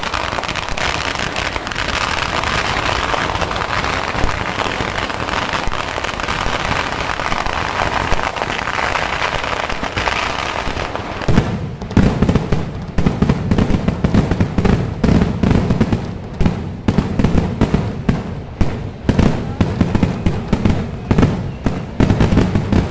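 Kerala temple-festival fireworks (vedikettu) going off: a dense, unbroken crackle of firecrackers for roughly the first ten seconds, then a quick run of separate loud bangs, several a second, with deep thuds as shells burst overhead.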